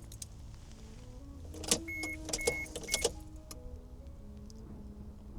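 Soft background music with a stepping melody, with three sharp clicks in the middle.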